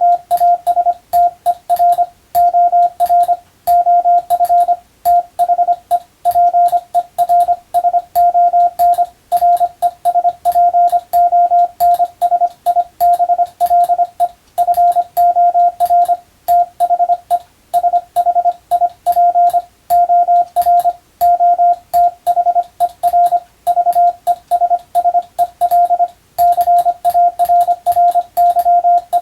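Hand-sent Morse code (CW): a single steady mid-pitched tone keyed on and off in dots and dashes at an even sending pace, with short gaps between characters and words and a faint click at each keying.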